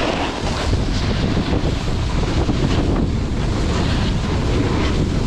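Heavy wind buffeting the microphone of a camera carried by a moving snowboarder, over the steady scraping hiss of snowboard edges sliding on packed snow.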